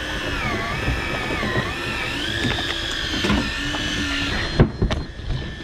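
Electric fishing reel motor whining as it winds in line, its pitch rising and falling. A few sharp knocks come near the end as the winding stops.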